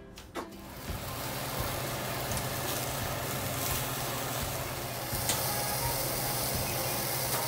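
Gas stove burner running on full flame with a steady rushing hiss, an eggplant's skin sizzling as it chars on a wire rack over it, starting about half a second in. Metal tongs click a few times as the eggplant is turned.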